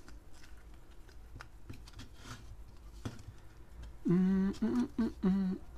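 Hands working a soft rubber RC short-course tyre onto its wheel, with faint rubbing and small clicks of rubber against plastic. About four seconds in, a man lets out four short, steady-pitched hums of effort while forcing the tyre's bead into place.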